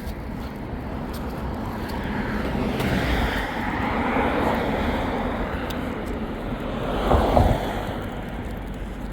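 Outdoor road traffic: a steady noisy rush that swells and fades like a passing vehicle, with wind on the microphone and a brief louder surge about seven seconds in.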